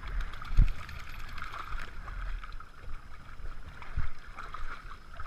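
Shallow lake water sloshing and splashing around two wading standard poodles, with a dull thump about half a second in and another near four seconds.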